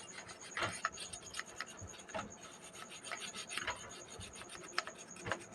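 Toothbrush scrubbing a petrol-wetted UPS circuit board: faint, irregular scratchy brush strokes.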